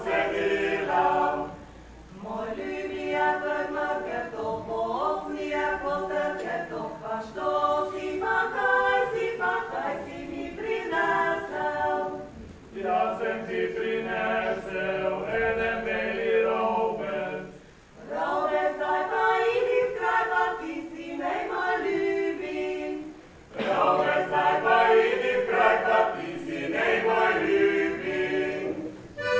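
Mixed men's and women's voices singing a folk song together, unaccompanied, in several long phrases with short pauses between them.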